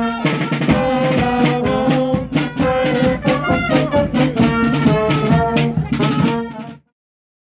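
Brass band with drums playing a lively march-like carnival tune, cutting off abruptly near the end.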